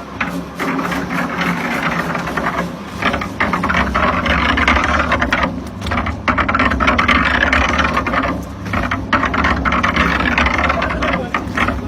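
Motor-driven sand-grinding machine running steadily, a low engine hum under a loud, continuous rattling churn that dips briefly a few times.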